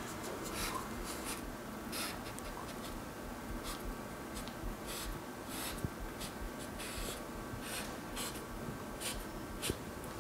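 Paint marker scratching across textured canvas in a string of short, irregular strokes as letters are drawn. A sharp click right at the start.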